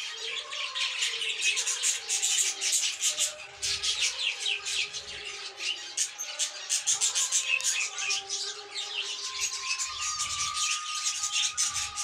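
A colony of budgerigars chattering, with many quick overlapping chirps and warbles that never stop.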